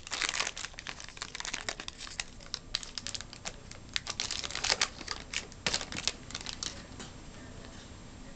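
Foil trading-card pack wrapper being crinkled and torn open by hand, a dense run of sharp crackles that thins out and stops about seven seconds in.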